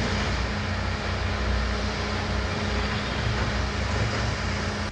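An engine running steadily: a low rumble with a constant hum, which cuts off abruptly at the end.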